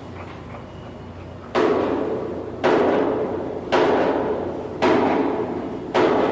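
Hammer blows on steel, five loud strikes evenly spaced about a second apart starting about a second and a half in, each ringing on and fading before the next, over a low steady hum.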